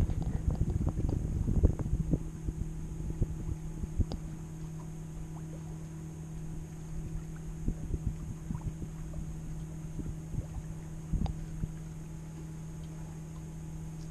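Small sailboat under sail: wind buffets the microphone, strongest in the first two seconds, and water knocks irregularly against the hull, over a steady low hum.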